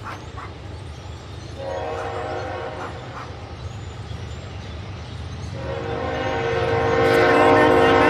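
Nathan K5HL five-chime air horn on a Union Pacific GE diesel locomotive, sounded twice as the train approaches: a blast of about a second and a half, then a long blast from about five and a half seconds in that grows louder. A steady low rumble runs underneath.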